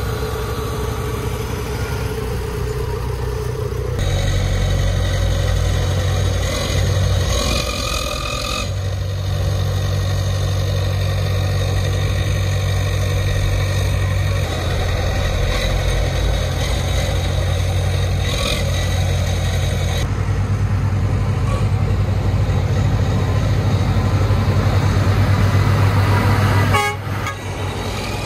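Heavy diesel engines of a Howo dump truck and a crawler bulldozer running hard under load as the dozer pushes the sand-bogged truck. The low engine drone is steady, with a few brief high-pitched tones.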